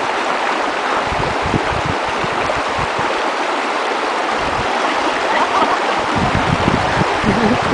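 Mountain stream rushing steadily over rocks, with irregular low thumps that grow more frequent in the last couple of seconds.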